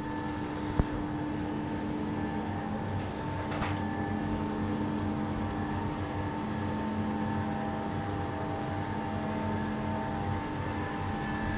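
Metal lathe running with a steady hum of several constant tones, turning a steel exhaust-mount boss; one brief click about a second in.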